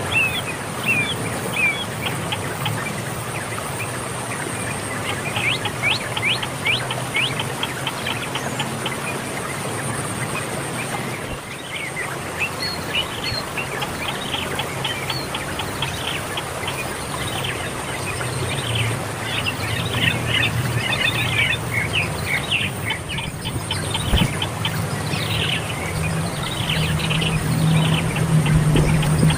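Small birds chirping in quick series of short, high chirps, busier in the second half, over a steady low hum and a thin, steady high whine.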